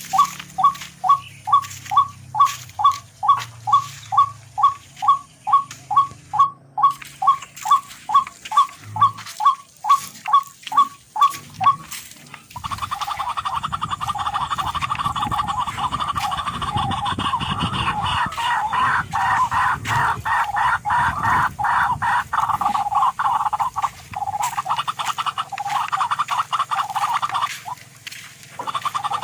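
Calls of tikling (barred rail): a regular series of sharp notes about two a second. About 12 s in, this gives way to a dense continuous rattling chorus with a low rumble underneath, which briefly drops out near the end.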